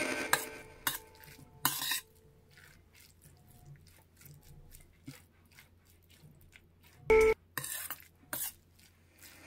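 Metal spoon mixing bean sprouts and rice in a stainless steel bowl: scattered scrapes and clinks against the bowl. They are loudest about two seconds in and again around seven to eight seconds in, with soft stirring between.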